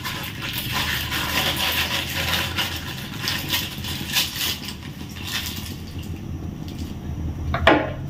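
Hands wringing a cloth bundle of grated coconut to press out coconut milk: wet squeezing and crunching of the pulp for the first few seconds, over a steady low hum. A short falling squeak near the end.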